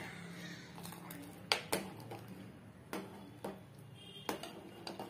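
Steel ladle clinking against the side of a metal pot while stirring kheer (rice simmering in milk), about five sharp taps spread over a few seconds, over a low steady hum.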